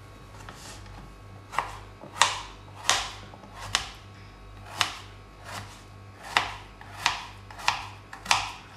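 Kitchen knife chopping potatoes into small pieces on a plastic cutting board: about ten sharp knocks at a steady pace, one every half to three-quarters of a second, starting about a second and a half in.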